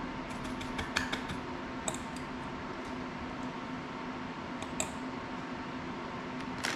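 Light clicks and taps of small tools and parts being handled at a soldering bench: a quick cluster about a second in, then single clicks near two, five and just under seven seconds, over a steady low hum.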